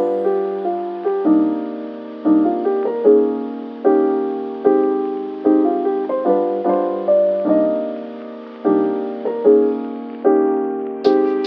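Piano music: a slow melody of single struck notes, each one fading away before the next. Near the end a brighter, sharper run of notes joins in.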